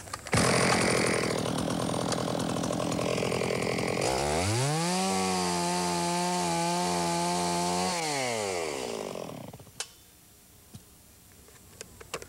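Two-stroke Stihl chainsaw cutting the lower face of a felling notch into a standing tree trunk for about three and a half seconds. The engine then climbs to a high, steady whine for about four seconds before the throttle is released and it winds down. A small knock follows near the end.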